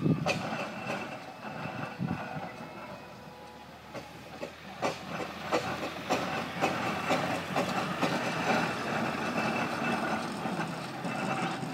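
Steam engine running as it drives along, a hiss of steam under irregular clanks and knocks.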